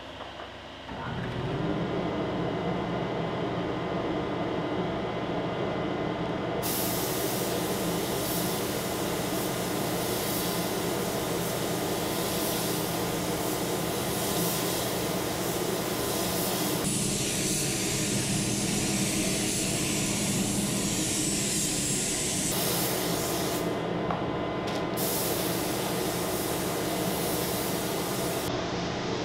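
Compressed-air paint spray gun spraying catalyzed boat paint: a loud, even hiss that comes in about six seconds in, shifts in character a couple of times and stops briefly about three-quarters of the way through. Under it runs a steady mechanical hum that starts about a second in.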